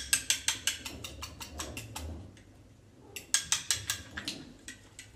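Rapid sharp clicks or crackles from a small object being handled, in two runs with a pause of about a second between them, about two seconds in.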